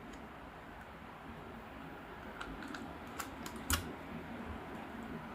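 A few light clicks and taps of a metal laptop heat sink being handled and set onto the motherboard, the loudest a click with a dull knock a little over halfway through, over a faint steady hiss.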